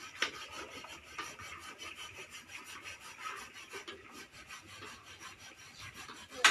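Fast, regular rasping strokes, several a second, from cooking utensils scraping in pots, with one sharp clank near the end that is the loudest sound.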